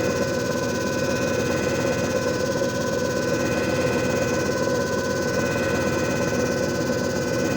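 JFJ Easy Pro disc repair machine running steadily: an even motor hum with a few steady whining tones over a rough grinding noise.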